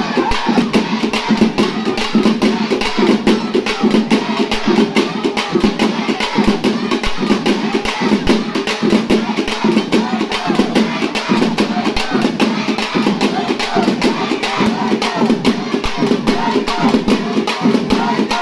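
Temple festival drums beaten in a fast, even, driving rhythm, the drumming played to bring the goddess down onto a devotee in possession. A crowd's voices run beneath it.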